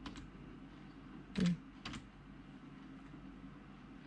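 Typing on a computer keyboard: a few separate keystrokes, one louder tap about a second and a half in, over a steady low hum.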